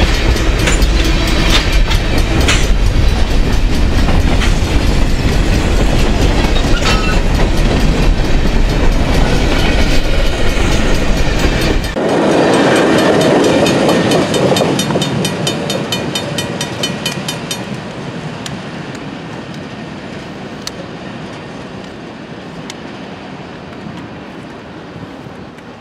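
Freight train cars, mostly LPG tank cars, rolling past close by: a loud, steady rumble of steel wheels on rail with sharp clicks over the rail joints. About halfway through the sound changes abruptly, then fades steadily as the train draws away.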